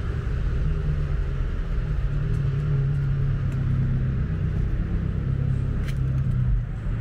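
Road traffic: a steady low rumble of car engines, with a faint click about six seconds in.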